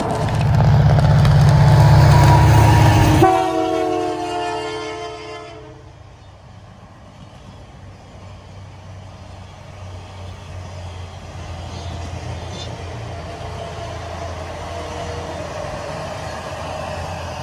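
Diesel locomotive passing at speed and sounding its horn, a chord of several tones. The horn's pitch drops sharply about three seconds in as the locomotive goes by, and it fades out by about six seconds. After that the train's cars roll past with a steady low rumble.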